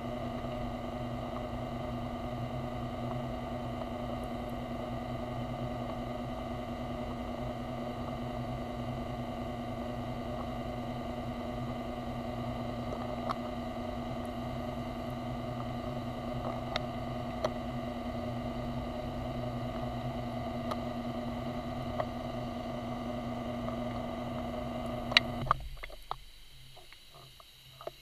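Underwater scooter (diver propulsion vehicle) electric motor running with a steady hum, heard underwater. It cuts off about 25 seconds in, after a couple of sharp clicks. Only faint ticks follow.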